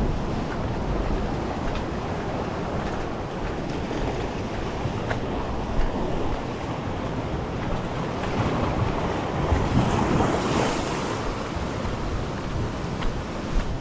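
Sea surf washing and breaking against shore rocks, with wind buffeting the microphone; the wash swells louder and hissier about nine to eleven seconds in.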